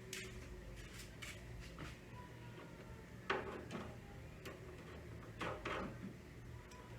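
Scattered light clicks and knocks, with two louder knocks about three and five and a half seconds in.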